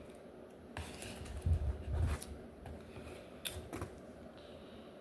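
Comic books in plastic sleeves being handled: plastic crinkling and clicking several times, with soft thumps as books are set down about a second and a half in.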